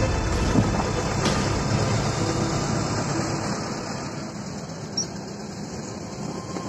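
Steady road and engine noise of a moving passenger vehicle heard from inside, slowly growing quieter.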